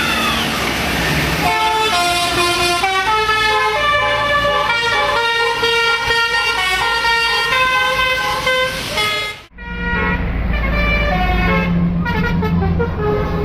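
Bus Basuri telolet horns, a set of electric horns playing a multi-note melody in quick stepped tones. The melody breaks off suddenly about nine and a half seconds in, and another bus's horns take up a tune over a low engine rumble.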